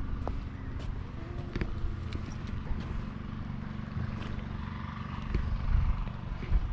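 Wind buffeting the camera's microphone in a low, uneven rumble, gusting stronger about five and a half seconds in, with a few faint clicks.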